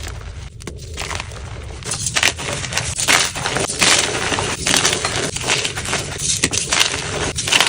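Dyed gym chalk being crushed and crumbled by hand, a dense run of dry, irregular crunches and crackles that grows busier and louder about two seconds in.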